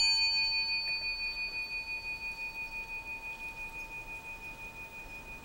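Buddhist temple bowl bell (rin) just struck once, ringing on with a clear tone and a few higher overtones that fade slowly, wavering in a steady pulse as it dies away.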